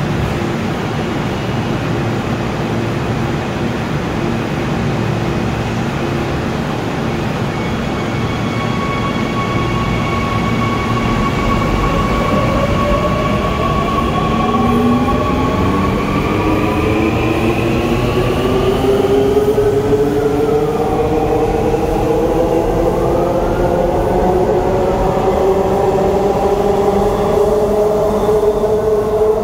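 Seoul Subway Line 2 second-batch VVVF electric train departing: a traction-inverter whine over wheel and rail rumble. Steady tones give way about twelve seconds in to several tones rising together as the train gathers speed past the platform, with two short tones that rise and fall near the middle.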